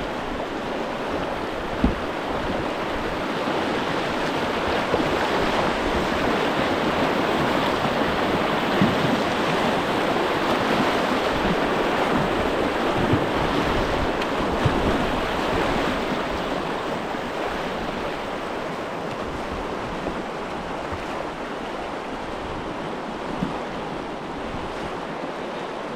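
Steady rush of river current running over a rapid. It swells through the middle and eases toward the end, with a few faint knocks.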